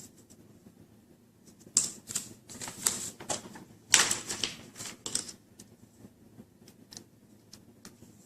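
Plastic laptop screen bezel being handled and fitted back over the screen: a run of sharp plastic clicks and short rattles for about three seconds, then a few faint ticks.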